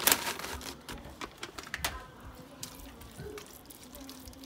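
Shredded cheddar shaken from a plastic bag into a pot of creamy macaroni, the bag crinkling, then a plastic spoon stirring through the wet noodles with soft clicks and squelches. The sound is busiest in the first two seconds and quieter after that.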